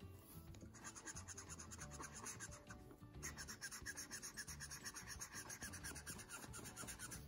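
Marker nib scratching on sketchbook paper in quick, short back-and-forth strokes while colouring in, faint, with a brief pause about three seconds in.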